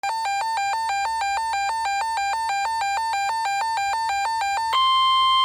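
Electronic alert alarm warbling, switching rapidly back and forth between two pitches. Near the end it gives way to a steady, single-pitched NOAA Weather Radio 1050 Hz warning alert tone.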